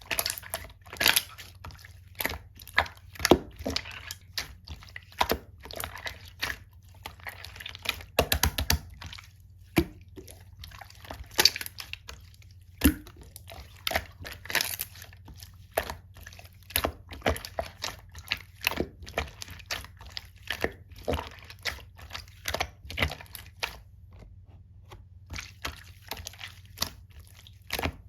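Mixed slime being squished and pressed by hand, giving a continual run of small sticky clicks and pops, several a second, with a short lull about three quarters of the way through.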